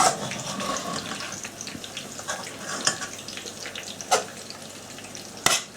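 Chicken in korma sauce cooking in a pan, with a steady bubbling sizzle and a few sharp taps, the loudest near the end.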